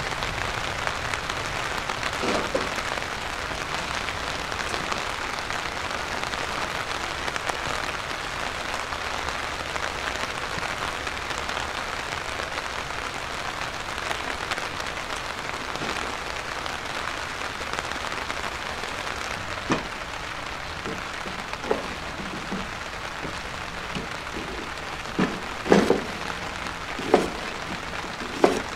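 Heavy rain falling steadily, a dense even hiss. In the last third, a handful of sharp knocks from a kitchen knife chopping sweet potato on a plastic cutting board.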